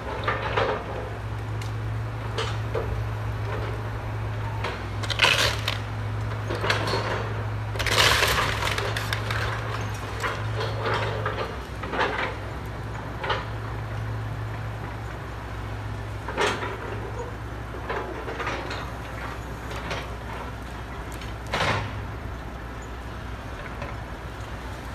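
Excavator's diesel engine running steadily while its grapple claw crushes and breaks up a pile of wooden house-demolition debris, with several sharp cracks and crashes of splintering timber; the longest crash comes about eight seconds in.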